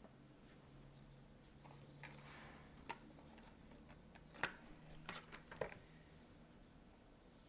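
Faint crayon coloring on paper: brief scratchy strokes and several small sharp clicks and taps, as of crayons being handled and set down on a table, over a low steady hum.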